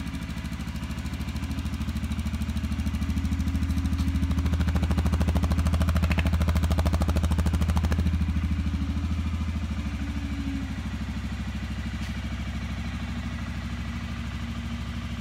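2017 Suzuki King Quad 750 ATV's single-cylinder engine idling steadily. It grows a little louder for a few seconds in the middle.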